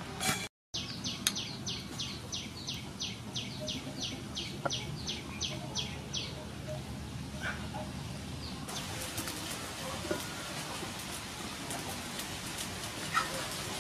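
A bird calling in a quick run of short falling chirps, about four a second for some five seconds, then falling silent.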